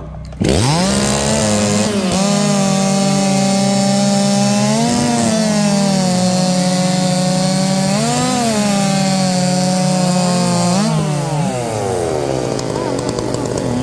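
Two-stroke chainsaws revving to full throttle and cutting through a log in a timed race. The pitch dips briefly twice as the saws load down in the cut, then falls away about eleven seconds in as the cuts finish and the throttles are released.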